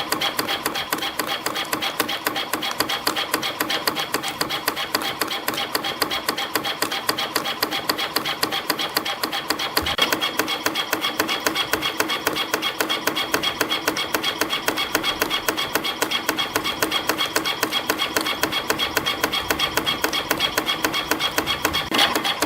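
CNC spring coiling machine (CF-308) running, feeding 0.7 mm wire and coiling conical compression springs: a steady, fast mechanical clatter of about four to five strokes a second over a steady whine.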